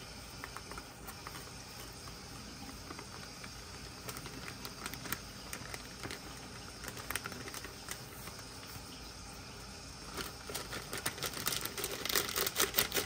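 Ankarsrum stand mixer mixing water and shrimp fry mix into a batter: a faint steady hum with scattered clicks and crackles that grow denser and louder over the last few seconds.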